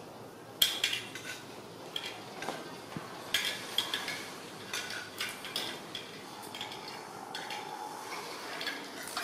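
Hard plastic toys knocking, clicking and clattering on a tile floor as a baby monkey handles them, in irregular sharp taps with a short ring after some.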